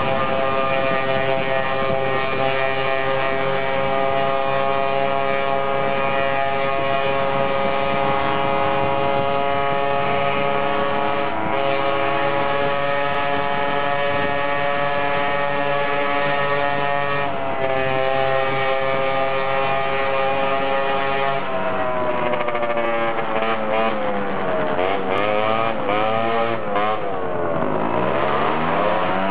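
Vespa 50cc S scooter engine running at steady high revs on the move, then the revs drop and climb again a few times near the end as it slows and speeds back up.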